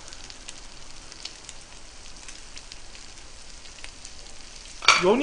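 Sliced pork sizzling steadily on a hot electric griddle, with scattered small crackles and pops of fat.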